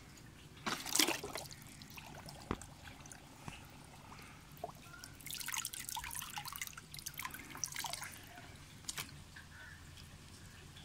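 Water splashing and dripping as a plastic Duplo toy pirate ship is lifted out of shallow pool water and set back down: one splash about a second in, then a longer run of splashes and drips around the middle, with a few light clicks of plastic between.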